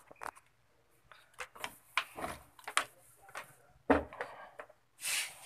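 Irregular clicks, light knocks and rubbing from handling a TV's circuit board and bench tools, with one louder knock about four seconds in and a short hiss near the end.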